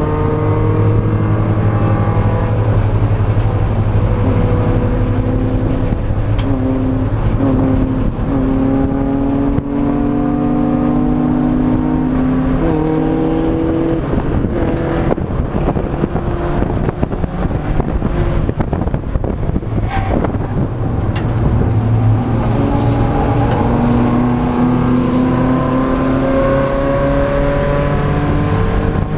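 A race car's engine heard from inside the stripped, roll-caged cabin, accelerating through the gears: its pitch climbs slowly and drops back at each upshift. Wind and road noise run underneath, with a few sharp knocks.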